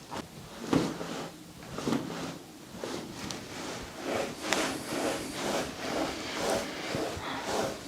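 Hands rubbing and pressing on a patient's body and clothing during a chiropractic treatment. There are two soft thuds about a second and two seconds in, then a run of rubbing strokes, about two a second, in the second half.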